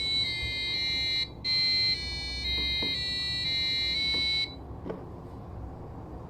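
Arduino-driven buzzer sounding the alarm clock's melody: a high, buzzy electronic tone stepping between notes two or three times a second, with a brief break about a second in. It cuts off suddenly about four and a half seconds in.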